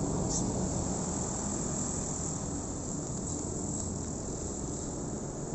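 Crickets chirring in a steady high-pitched drone, over a continuous low rumble.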